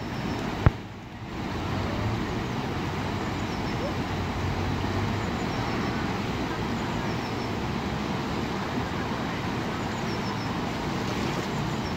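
Steady rush of churning whitewater from the Eisbach river surfing wave. A sharp click comes less than a second in, followed by a brief drop in level.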